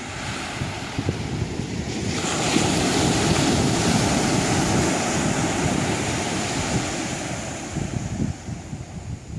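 Ocean surf: a wave builds, surges loudest from about two seconds in, then ebbs away near the end.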